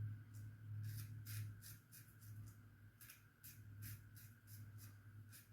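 Gem Junior single-edge safety razor scraping through lathered stubble: faint short strokes, several a second, with a steady low hum underneath.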